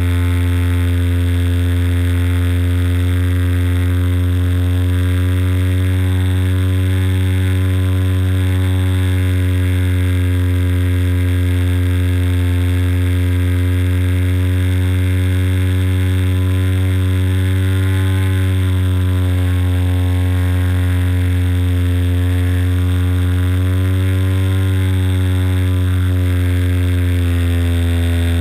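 The engine of a radio-controlled Bücker Jungmann model biplane, heard close up from the cockpit-mounted camera, running steadily at flying speed. Its pitch rises slightly and settles back twice, about two-thirds of the way in and again near the end.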